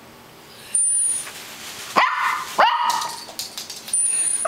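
Small grey poodle barking twice, two sharp, high barks about half a second apart, about two seconds in, with hissing noise before and after.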